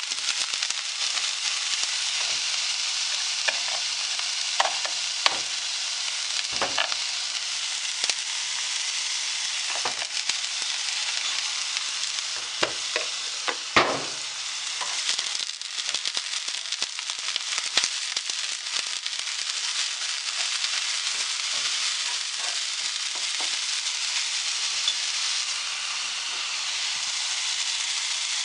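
Bean sprouts sizzling steadily as they stir-fry in oil in a frying pan, with scattered clicks and knocks as they are stirred; the loudest knocks come about a quarter of the way in and about halfway.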